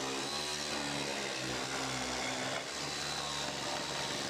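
Corded electric power saw running steadily as it cuts through rough-sawn wooden wall boards, a motor hum whose pitch wavers slightly under load.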